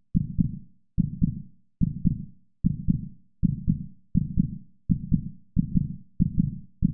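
Heartbeat sound effect: a steady lub-dub of deep double thumps, a little under one beat a second, each fading out before the next.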